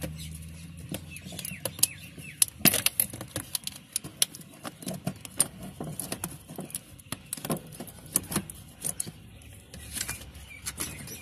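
Irregular metallic clicks and small rattles of pliers being worked at a heater hose clip on the firewall of a Toyota FJ's engine bay.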